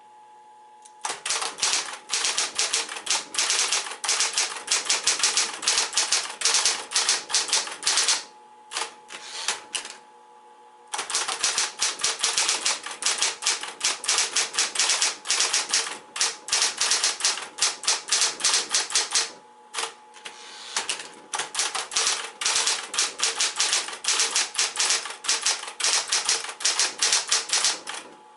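Smith-Corona Electra 120 motor-assisted manual typewriter typing in fast runs of key strikes over the steady hum of its electric motor. The typing pauses twice, about eight and about twenty seconds in.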